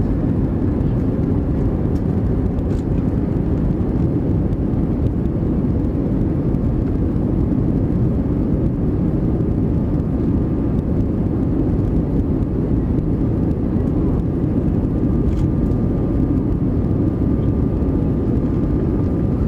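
Steady rumble of a Thai AirAsia Airbus A320-200's engines and rushing air, with a faint thin steady tone joining about halfway through.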